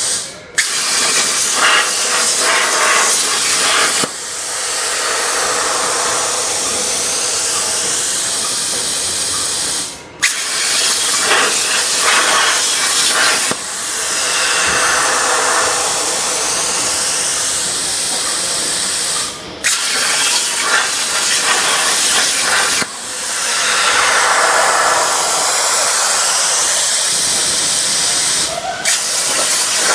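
CNC plasma cutter torch hissing loudly as it cuts 1.5 mm stainless steel sheet. The hiss stops briefly and starts again four times, about every nine to ten seconds.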